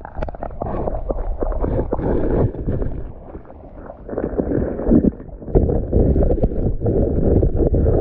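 Hands splashing and sloshing in shallow creek water, grabbing under a rock for a small fish, with irregular knocks and gurgles.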